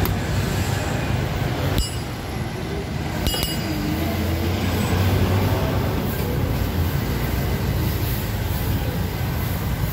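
Steady rumbling background noise of a busy street food stall, with two short sharp clicks about two and three and a half seconds in.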